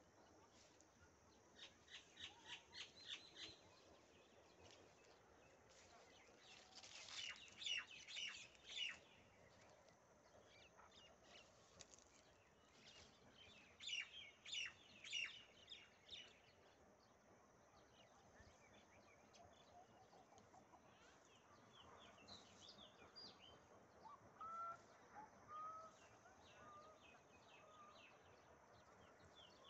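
Birds chirping in quick clusters of high chirps, four times over, with a few softer, lower notes near the end.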